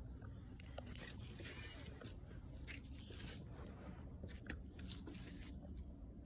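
Faint crunching and rustling close to the microphone: scattered clicks with stretches of soft hiss, from the person filming moving about and handling the phone.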